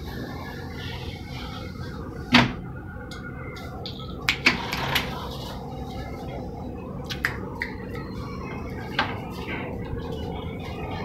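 Sharp clicks and clacks of a roller mosquito-mesh screen's bar moving in its window frame: a loud one about two seconds in, a cluster around four to five seconds, and a few lighter ones later, over a steady low background rumble.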